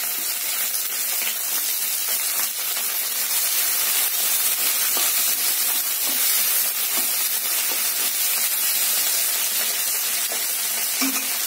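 Chopped tomatoes, onion, ginger, garlic and green chillies sizzling in hot oil in a kadai: a steady frying hiss, with a few faint clicks.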